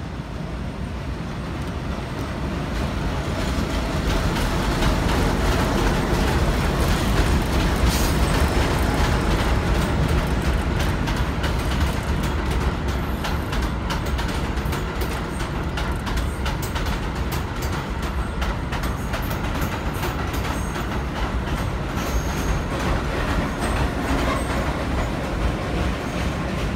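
A diesel work locomotive towing a train of new R211A subway cars past on elevated track. The rumble grows over the first few seconds as it approaches, then the cars' wheels click steadily over the rail joints, with a few brief high wheel squeals.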